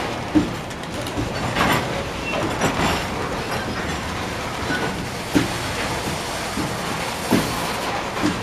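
Loaded Norfolk Southern covered hopper cars rolling past on the rails: a steady rumble of steel wheels on track, broken by a few sharp clanks at irregular intervals.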